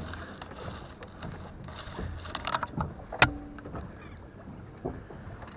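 Handling noise from a spinning reel and rod held close to the microphone: scattered clicks and knocks, the sharpest a little past three seconds in with a brief ring after it, over a low rumble of the boat.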